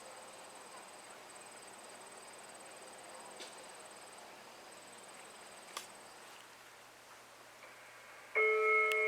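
Faint, steady high insect trilling with a couple of small clicks. Near the end a loud, steady radio alert tone comes suddenly through the fire pager: the first tone of the sequence sent to set off the fire sirens for a test.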